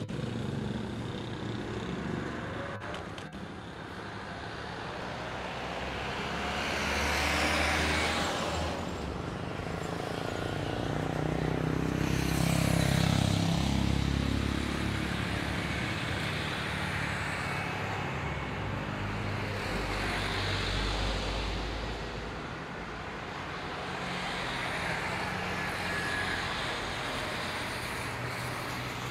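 Outdoor traffic rumble with vehicles passing close by, swelling and fading twice, over a steady low drone from distant jet airliners taxiing on the airfield.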